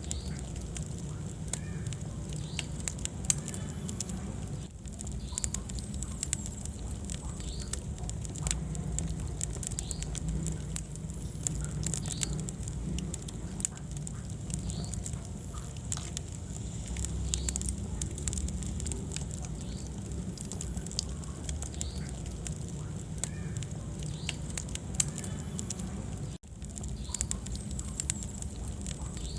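Wood fire burning in a fireplace, crackling and popping in many small sharp cracks over a low rumble of the flames. The sound drops out for a split second about 26 seconds in.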